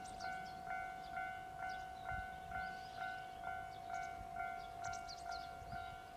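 Japanese railway level crossing warning bell ringing steadily at about two strokes a second, the alarm that signals an approaching train, with small birds chirping.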